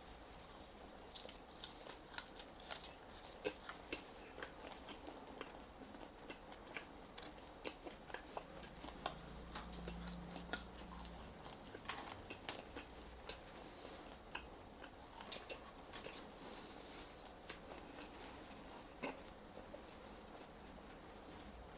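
A person chewing seasoned French fries close to the microphone, with many short wet mouth clicks scattered throughout. A brief low hum comes about halfway through.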